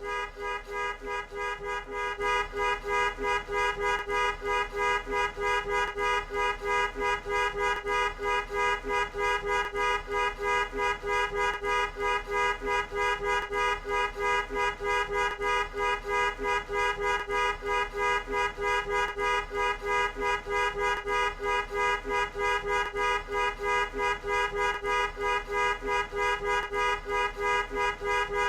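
Car horn honked over and over in short, even blasts, about two to three a second, sounding two notes at once.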